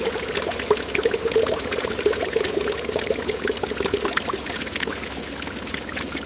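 Liquid pouring, with many small crackling clicks over it.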